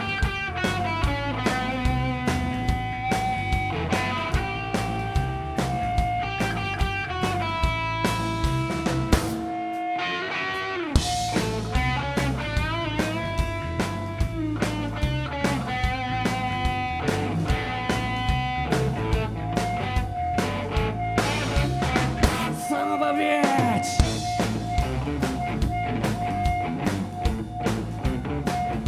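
Rock band playing live, with electric guitar over bass and drum kit. The low end drops out briefly twice, about ten seconds in and again near the end.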